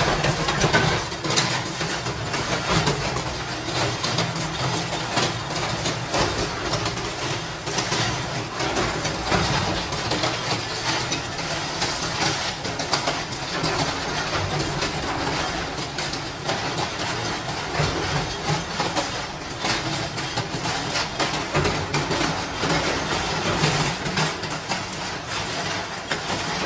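Steady running of workshop machinery with continual clinking and rattling of small metal parts throughout.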